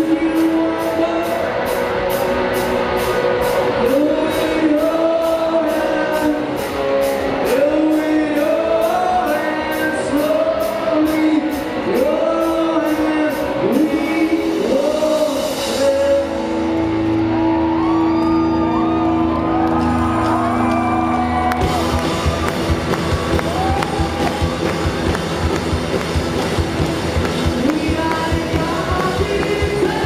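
Live rock band playing, a male singer singing over electric guitars, bass and drums with steady cymbal beats. About two thirds of the way through, the vocals and cymbals drop away to a held note over a low drone, then the full band crashes back in with heavy drums.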